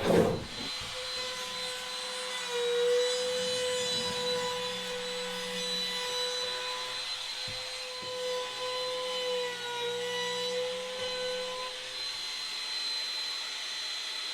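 Small trim router with a flush-trim bit running at a steady high whine. Its pitch sags slightly now and then as the bit takes load trimming wood.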